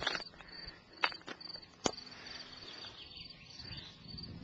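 Crickets chirping in a steady, high, pulsing rhythm, with three sharp knocks in the first two seconds.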